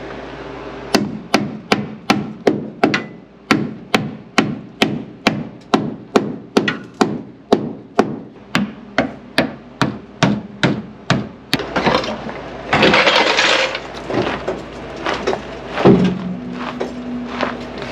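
Hammer beating the sheet-metal lip inside a car's front wheel well, about three steady blows a second for some ten seconds, folding the lip in so a big knobby tire won't rub on it. The hammering is followed by a couple of seconds of rushing noise and a single thump.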